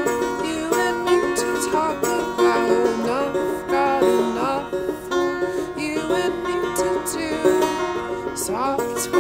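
Banjo played in a folk-style tune: a steady run of quickly picked notes.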